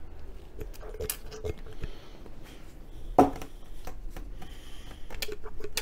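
Small clicks and faint rubbing from a red pump oil can being squirted onto a piston's gudgeon pin and the piston and conrod being handled, with one sharper click a little past three seconds in.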